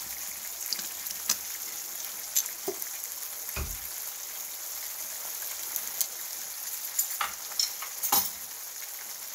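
Ground beef in sauce sizzling in a cast iron skillet: a steady high hiss with scattered small pops and crackles. A single dull knock comes about three and a half seconds in.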